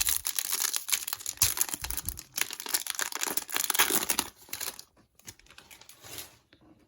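Plastic wrapper of a 2022 Bowman baseball card pack being torn open and crinkled for about four and a half seconds, then fainter rustling as the cards are handled.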